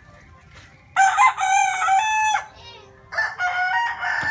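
Rooster crowing loudly and close by, twice: one crow about a second in, and another starting about three seconds in.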